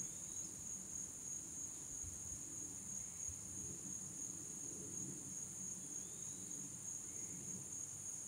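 A late-summer chorus of field insects giving a steady, unbroken high-pitched trill.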